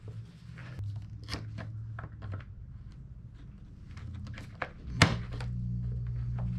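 Aviation tin snips cutting through the plastic rear fender of a Honda CRF450RL: a run of irregular crunching snips, the sharpest about five seconds in, over a steady low hum.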